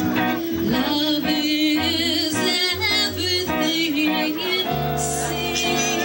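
Live blues band playing: a male singer's voice over electric guitar and plucked upright bass. Near the end a long held chord comes in under the voice.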